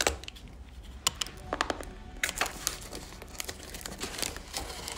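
Cardboard box being cut open with a box cutter and handled: a run of scattered crackles, scrapes and small clicks of cardboard, over soft background music.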